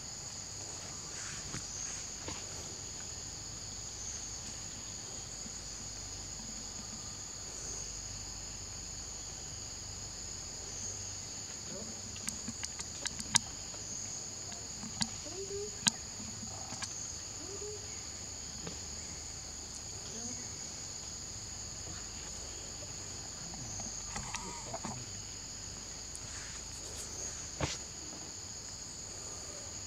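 Steady high-pitched insect chorus, slightly pulsing, with a few sharp clicks about halfway through and one more near the end.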